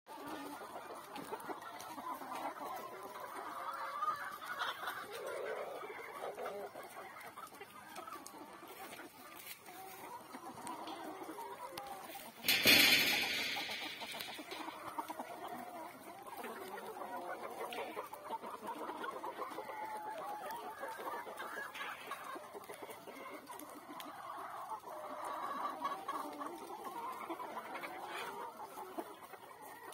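A flock of Kadaknath chickens clucking and chattering continuously. A sudden loud burst of noise comes about twelve seconds in and fades over a second or so.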